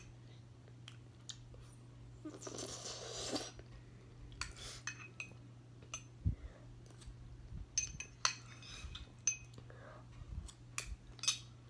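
Metal spoon scraping and clinking against a ceramic bowl while scooping pudding: scattered short clinks, with a longer scrape about two and a half seconds in.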